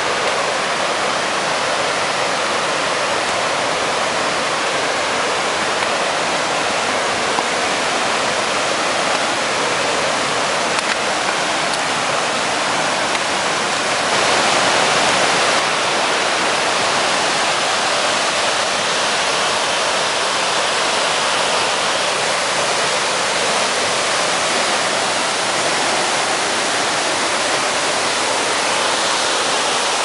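Steady, loud rush of a fast-flowing river with waterfalls, white water churning over rocks; it gets a little louder about halfway through.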